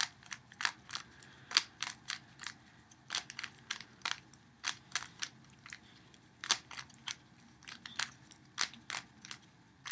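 Faces of a 3x3 Rubik's Cube being turned quickly by hand, a run of sharp plastic clicks, about two to three a second and unevenly spaced, as the same move sequence is repeated over and over.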